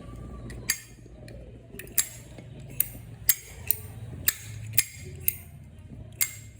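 Zippo lighter clinking as it is handled and flicked: about ten sharp metallic clicks, irregularly spaced, some half a second apart.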